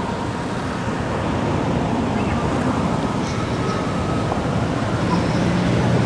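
Steady outdoor background noise with a low rumble.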